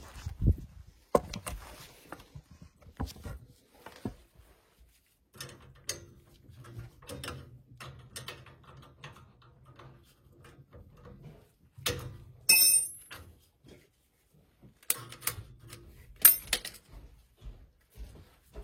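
Scattered clicks, knocks and metallic clinks of hands and tools handling the gas boiler's burner and pilot parts, with a brighter ringing clink about twelve seconds in and another near the end.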